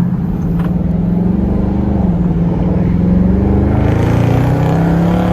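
2020 Dodge Charger R/T's 5.7-litre Hemi V8 running with its mid muffler deleted, its exhaust note a loud, steady drone held at an even engine speed, with a brief dip about two seconds in.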